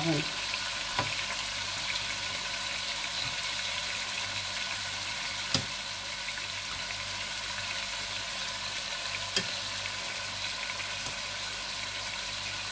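Food sizzling in a cooking pot on the stove, a steady hiss. A utensil knocks briefly against the pot three times.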